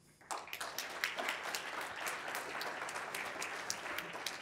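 Audience applauding at the end of a talk, a dense patter of many hands clapping that starts just after the start and holds steady.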